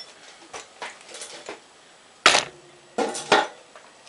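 Steel parts and hand tools clinking and knocking against each other during lathe headstock reassembly. There are a few light taps first, then a loud clank about two seconds in and two more close together a second later, each with a brief metallic ring.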